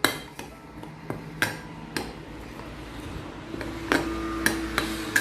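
A spoon knocking and scraping against a mixing bowl while dry flours for bonda batter are stirred together: irregular sharp taps, about eight or nine.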